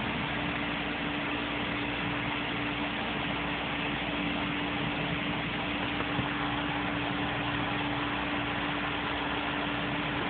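Steady mechanical hum and hiss with one constant low drone, unchanging throughout.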